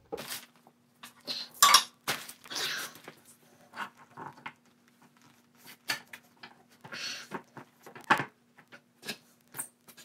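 Irregular metal clinks and knocks as a motorcycle rear wheel is lifted, turned and worked back into place, the loudest near the start.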